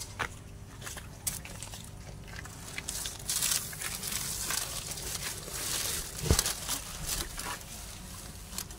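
Plastic sheeting rustling with scattered clicks and knocks of handling under a car, the rustle densest in the middle and one louder knock a little past six seconds in.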